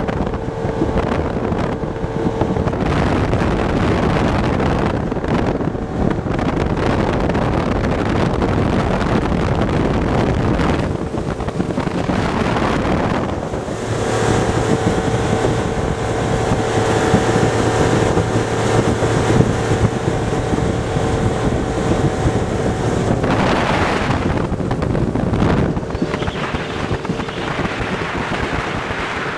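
Motorboat under way at speed: a steady engine drone over the rush of water along the hull, with wind buffeting the microphone. The engine tone is strongest through the middle stretch, about halfway in, while the boat's churning wake is in view.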